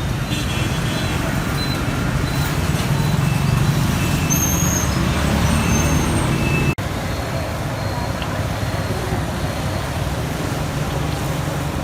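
Steady street traffic noise with low engine rumble, and faint voices in the background. A brief dropout about two-thirds of the way through.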